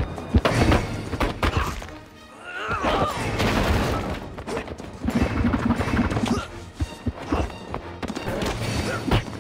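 Fight-scene sound effects from an action film: a run of punch and body impacts with crashes, over the film's score.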